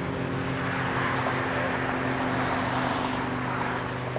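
Motor traffic: a steady engine hum with a vehicle passing, loudest between about one and three seconds in.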